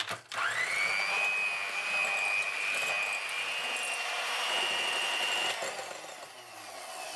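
Electric hand mixer with twin wire beaters starting up and whipping eggs with sugar in a glass bowl. The motor whine climbs quickly, then holds steady, and drops to a quieter running sound a little over five seconds in.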